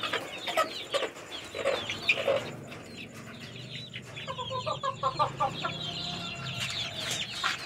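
A flock of chickens in a coop: young chicks peeping with short high chirps throughout, and an adult bird giving a quick run of about half a dozen clucks about four seconds in.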